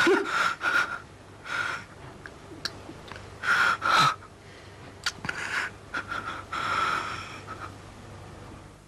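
An injured young man's laboured, wheezing breathing: about ten short, irregular gasps, growing weaker near the end.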